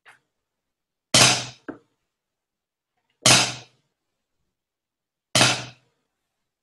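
Drumsticks striking a practice pad, playing a snare drum part: sharp single hits about two seconds apart, each ringing out briefly. A faint tap comes at the start, and a softer tap follows just after the first loud hit.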